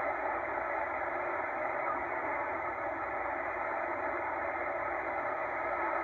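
Steady hiss of shortwave band noise from a Tecsun H-501X receiver in USB (single-sideband) mode, tuning across an empty stretch of frequencies with no station heard. The hiss is narrow and thin, cut off above and below by the sideband filter.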